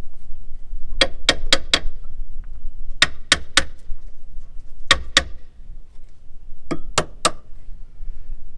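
Sharp taps in quick groups of two to four, from a sterndrive alignment tool being tapped through the gimbal bearing into the engine coupler. The tool won't slide in freely, a sign that the engine is not quite lined up with the drive.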